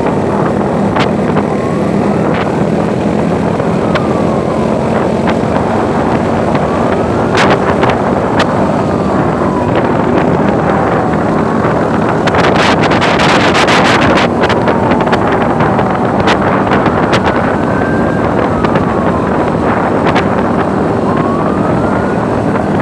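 Motorcycle engines running and wind buffeting the microphone while riding in a group, with a siren wailing up and down about every two to three seconds. A louder rush of noise swells briefly about twelve seconds in.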